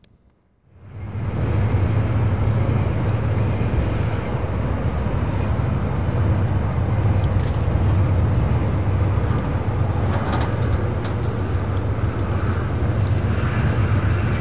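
Freight train rolling across a long bridge: a steady low rumble that comes in suddenly about a second in, with a few faint clanks.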